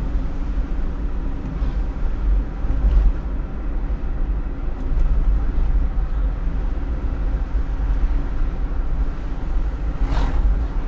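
Steady low rumble and road noise of a vehicle on the move, with a short hiss about ten seconds in.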